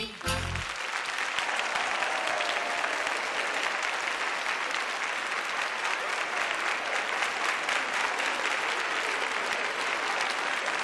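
The last chord of a song ends within the first second, followed by a large theatre audience applauding steadily.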